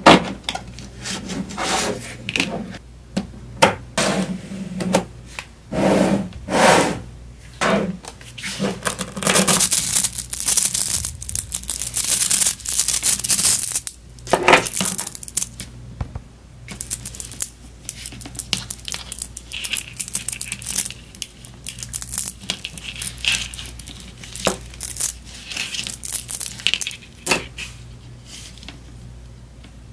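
Small neodymium magnetic balls clicking, clattering and scraping against each other as they are pried apart and snapped into chains by hand, with a dense stretch of rattling about ten seconds in.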